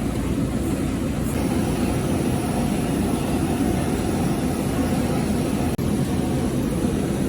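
A steady low rumbling noise, broken off for an instant about six seconds in.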